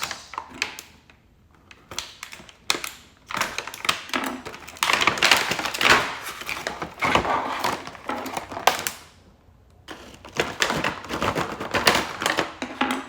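Stiff plastic blister packaging crackling and clicking as figure parts are pulled out of it, in several spells with short pauses between.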